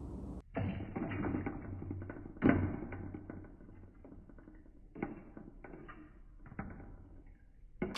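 Foley sound effects for a fishing scene: a run of small clicks, scratches and creaks, with a sharper knock about two and a half seconds in and another about five seconds in.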